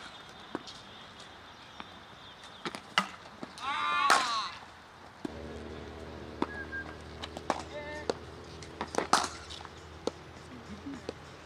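Cricket bats striking balls in practice nets: several sharp cracks scattered through, with a loud shouted call about four seconds in. A steady low hum sets in about halfway through.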